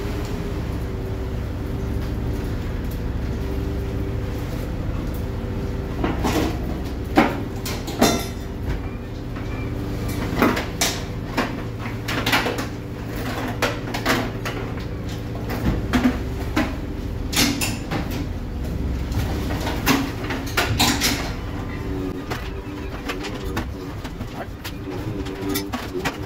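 The boat's engine and longline hauler drone steadily as the line is hauled aboard, with a few steady humming tones. Between about six and twenty-one seconds in, a halibut flaps on the metal table, making a run of sharp knocks and slaps.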